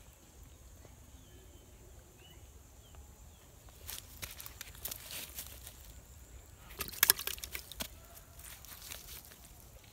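Dry leaves and twigs rustling and crackling as the ground litter is stirred and handled, irregular from about four seconds in, with a louder burst of crackling clatter about seven seconds in.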